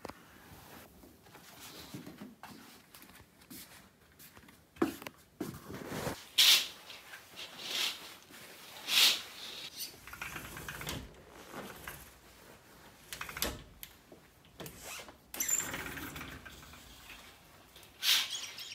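Someone moving about a small room: footsteps on a wooden floor and rustling, with a string of short scuffs and swishes, the loudest bunched about five to six seconds in, around nine seconds, and near the end.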